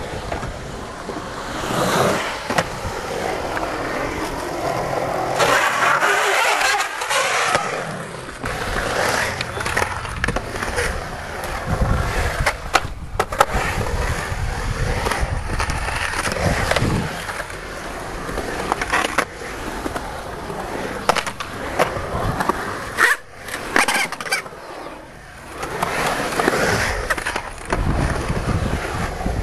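Skateboard wheels rolling over a concrete skatepark bowl, a steady rolling rumble that swells and fades as the rider carves the walls. Sharp clacks of the board come now and then.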